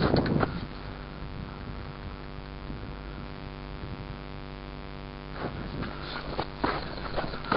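Steady electrical hum with many evenly spaced overtones, under a short burst of rustling at the start and scattered clicks and rustling in the last two seconds.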